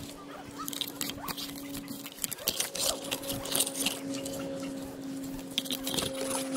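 Eucalyptus leaves and twigs rustling and crackling against the climber's camera as he moves through the foliage, a dense run of brushing and snapping sounds that gets busier about two seconds in. A steady low hum runs underneath.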